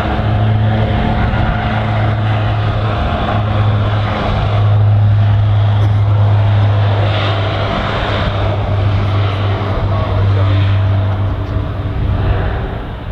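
Fairchild Swearingen SA-226's twin Garrett TPE331 turboprops at takeoff power during the takeoff roll: a steady low propeller hum over loud engine noise, softening a little near the end as the aircraft pulls away.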